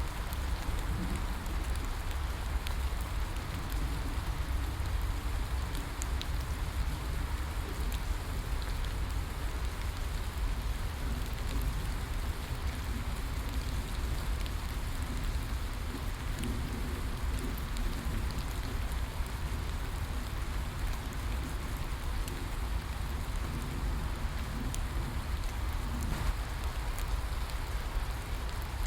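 Steady rainfall: an even hiss of rain with scattered sharp drop ticks and a steady low rumble underneath.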